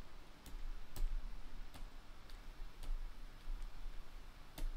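Computer mouse clicking, about six separate clicks spread irregularly over a faint low hum.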